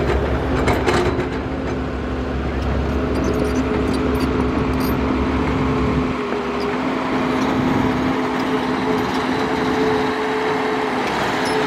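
Matador crawler excavator's diesel engine and hydraulics running steadily with a steady whine as it dumps a bucket of dirt into a dump truck and swings back to dig, with a few knocks in the first second. The deep engine rumble eases about halfway through.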